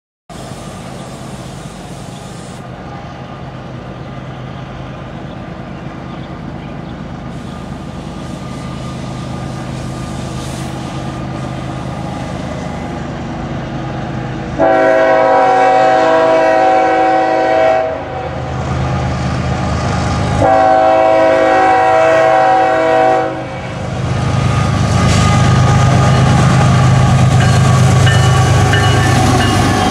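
A GE ES44AH diesel-electric freight locomotive approaching: its GEVO V12 diesel engine rumbles low and steadily, growing louder. About halfway through, its air horn sounds two long blasts of about three seconds each, a few seconds apart. Near the end the locomotive passes close, with engine noise and wheels on the rails.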